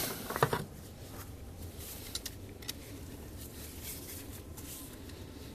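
Hand tool working a stubborn hose clamp on a fuel line: a quick cluster of sharp metallic clicks about half a second in, then scattered light clicks and scrapes.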